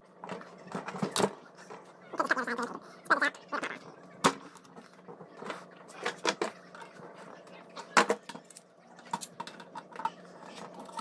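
Screwdriver prying at the cut-through remains of a scooter's threaded freewheel: irregular metal clicks and knocks with a couple of short squeaks, over a steady low hum.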